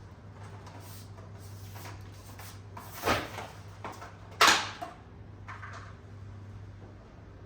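Kitchen items being handled, knocking and clattering, with two louder knocks about three seconds and four and a half seconds in, over a steady low hum.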